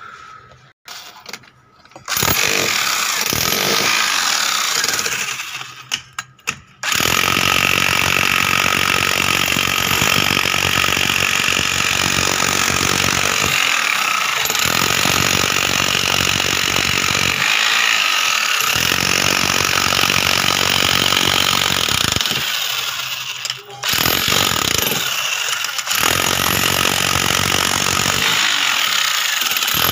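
A handheld power tool running loudly in long stretches, stopping briefly about six seconds in and again a little before the end.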